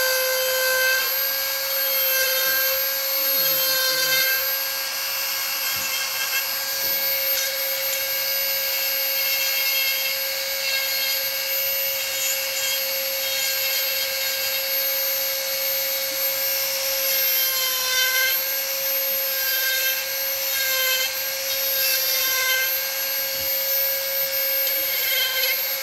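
Dremel rotary tool running at high speed with a steady whine, its burr grinding into wood in short passes so the rasp comes and goes.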